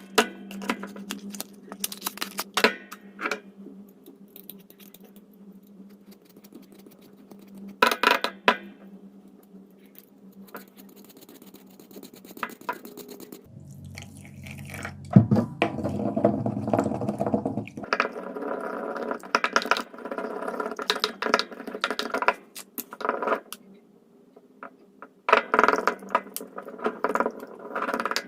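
Lifebuoy soap being crushed and crumbled: runs of sharp crunches and crackles in bursts, densest in the second half and near the end, over a faint steady low hum.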